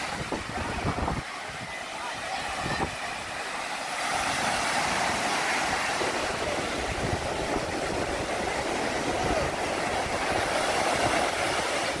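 Sea surf washing onto a sandy beach, a steady noisy rush that swells from about four seconds in, with bathers' voices mixed in. Wind gusts on the microphone in the first second.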